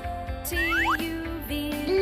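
Children's background music: a bright instrumental tune of held notes, with a quick upward glide in pitch about half a second in.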